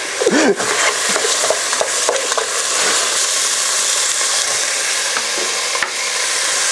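Food sizzling as it fries in a pot on a gas stove, a steady hiss with small ticks and scrapes as it is stirred with a spatula.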